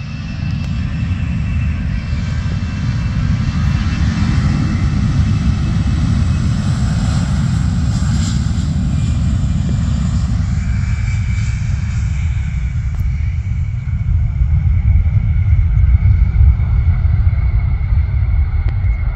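easyJet Airbus A320 jet engines at high power as the airliner rolls down the runway for takeoff: a steady deep rumble with a high whine over it. The rumble grows louder about fourteen seconds in.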